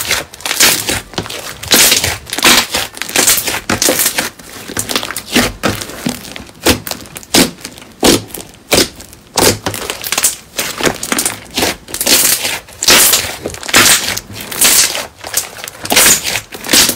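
Blue fluffy slime being kneaded, pressed and poked by hand, giving a run of crisp, crackling squishes, one with each press, roughly every second.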